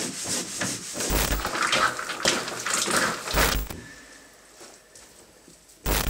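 Irregular knocks, taps and clatter, quieter for a stretch near the end.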